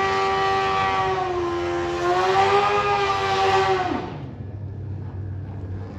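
Drag bike engine held at high, steady revs, dipping slightly about a second and a half in and climbing back, then cut off with a falling pitch about four seconds in. A quieter, low engine hum carries on afterwards.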